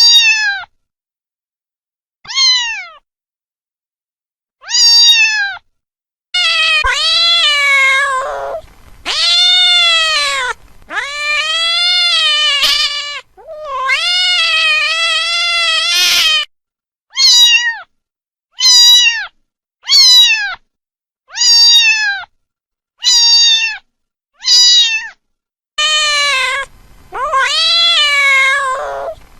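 Domestic cat meowing over and over: a few short meows, then a run of long, drawn-out meows with wavering pitch, more short meows, and long ones again near the end, with clean silence between calls.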